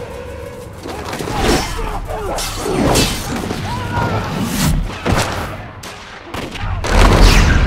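Fight-scene sound effects: a quick run of sword swishes, hits and thuds, with shouts and grunts, and a heavy low boom about seven seconds in.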